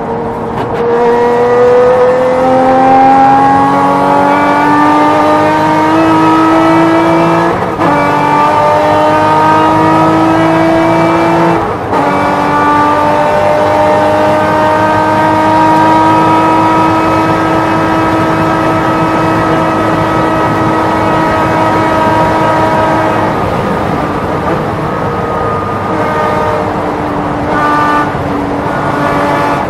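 Porsche race car engine at full throttle, heard from on board. It climbs through the gears with quick upshifts about 8 and 12 seconds in, holds high revs down the straight, then drops off with short rev blips near the end as the driver brakes and downshifts.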